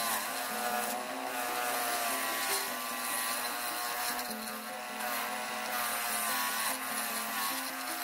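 Background music with a wavering melody over stepping low notes, with a steady hiss of metal being worked underneath.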